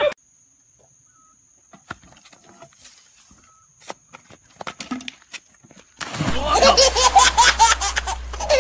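A quiet stretch with a faint steady high whine and a few soft clicks, then loud laughter breaks out suddenly about six seconds in.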